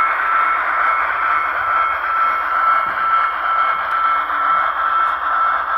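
Broadway Limited N-scale Union Pacific Big Boy's onboard DCC sound decoder playing steam locomotive running sounds through its tiny speaker as the model moves, a pulsing hiss with a steady high-pitched tone underneath.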